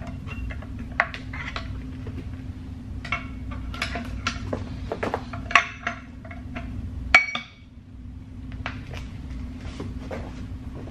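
Metal parts clinking and knocking against each other as an aluminium wheel spacer is handled and tried against an alloy wheel: a string of separate clicks, with one sharper, ringing clink about seven seconds in. A steady low hum runs underneath.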